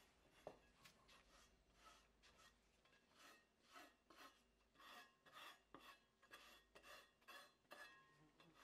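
Faint scraping strokes of a small steel spatula smoothing a waterproofing sealing corner down into fresh sealing adhesive, about two strokes a second from a few seconds in, after a single light tap near the start.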